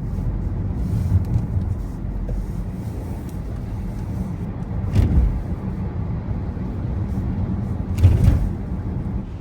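City street traffic: a steady low rumble, with vehicles passing close about five seconds in and again about eight seconds in.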